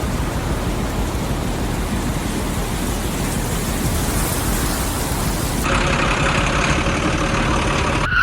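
A vehicle engine running steadily, a dense noisy rumble that shifts in tone about five and a half seconds in.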